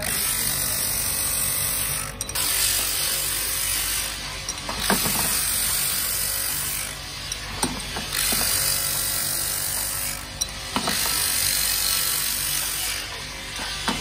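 Motorcycle drum-brake shoes having their friction lining ground on a motor-driven abrasive grinding wheel: a steady, harsh grinding hiss over the motor's hum. About every three seconds the grinding drops briefly and sharp metal clicks sound as a shoe is taken off the fixture and the next one set on.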